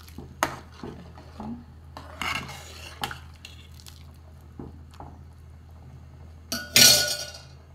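A metal ladle stirring rice and water in a large metal cooking pot, knocking and scraping against the pot with scattered clinks, and a louder clatter near the end.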